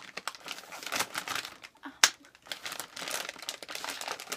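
Plastic snack bag crinkling as jelly cups are pulled out of it, with one sharp click about two seconds in.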